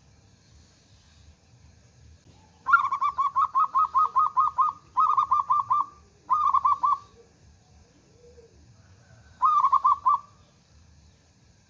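Zebra dove (perkutut) cooing in rapid runs of repeated notes. A long run of about two seconds is followed by two shorter runs, then after a pause one more short run.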